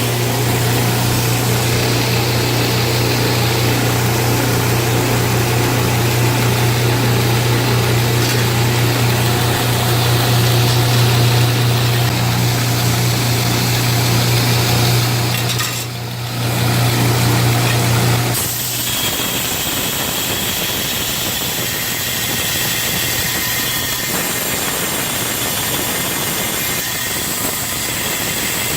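Homemade 2x72 belt grinder switched on and running: its electric motor and the sanding belt over the wheels make a loud, steady hum. About 18 seconds in the sound shifts, with less hum and more high whine.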